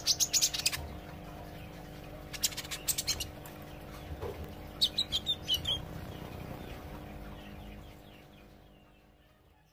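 A young kolibri ijo (sunbird) practising its song: three quick runs of sharp, high chirps a couple of seconds apart. A steady hum lies under it, and the sound fades out near the end.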